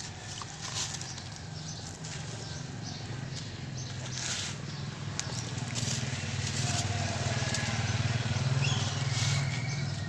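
Wet sand-cement being crushed and worked into a paste by hand, giving soft scattered crunches and squelches, over a steady low hum and a few faint chirps.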